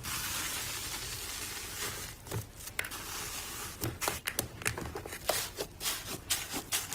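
Hands squishing and poking slime, making quick wet clicks and crackles that come thick and fast in the second half, after a steady hiss at the start.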